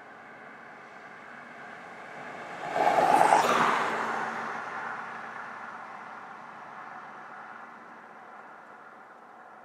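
A loud rushing noise swells quickly about three seconds in and fades slowly over the next few seconds, over a steady background hiss.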